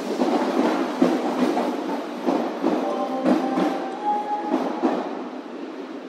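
Train moving through the station, its wheels knocking irregularly over rail joints and points. A brief squealing tone comes from the wheels in the middle, and the sound dies away near the end.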